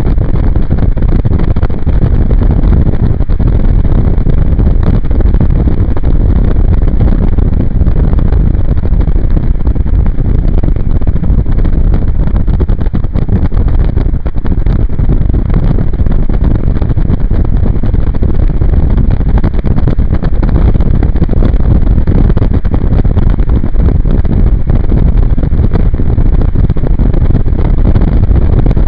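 Wind buffeting the microphone of a camera mounted outside a moving Jeep Cherokee XJ, a loud steady rumble with the vehicle's road and engine noise mixed in.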